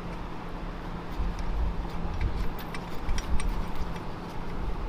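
Light, scattered metallic clicks of bolts being fitted and turned by hand into a cast iron pump housing's flange, over a low rumble that swells twice.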